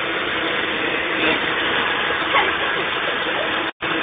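Countertop blender motor running steadily, churning a smoothie. It cuts out for a split second near the end, then carries on.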